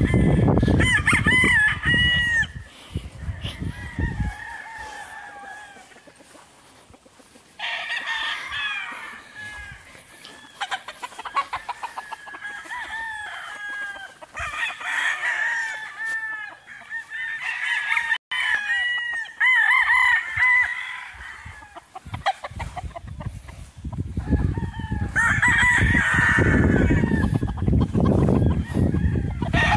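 American gamecocks crowing, several roosters calling one after another and overlapping in repeated bouts. A low rumble runs under the first few seconds and again near the end.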